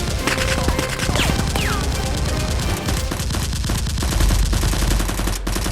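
Rapid gunfire in a continuous fusillade of shots, with two short falling whistles about a second in.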